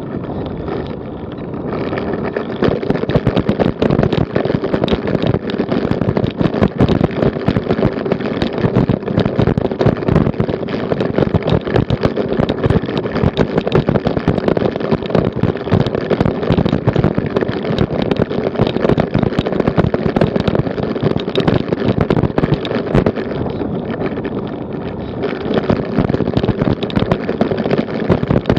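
Road bicycle juddering over cobblestones, with the bike and the camera mounted on it rattling in a dense, continuous clatter. It grows louder about two seconds in.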